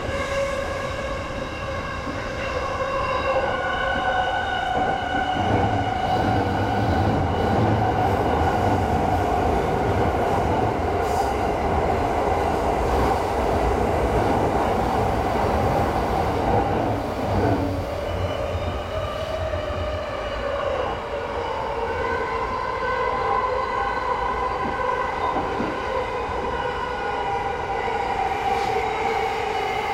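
E217 series electric commuter train running, heard from behind the driver's cab. Its traction motors whine in several tones that climb in pitch over the wheel and track noise. The whine gives way to a heavier low rumble for about a dozen seconds in the middle, then comes back and climbs again in the last third.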